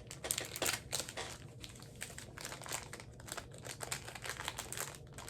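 Crinkly plastic packaging being handled and torn open: a sealed mystery pin bag, in a run of irregular crackles that thin out toward the end.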